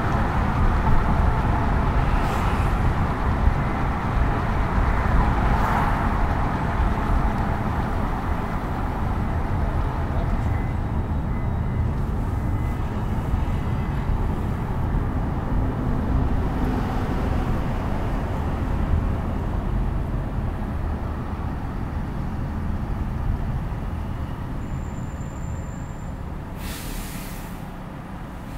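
Car driving on the road: steady low tyre and engine rumble that grows gradually quieter toward the end, with a short high hiss near the end.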